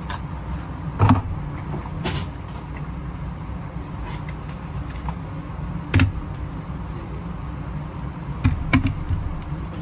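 Gear being unpacked onto a shooting bench, with ammunition and magazines being set down: several sharp knocks about 1, 2 and 6 seconds in and a few more near the end, over a steady low rumble.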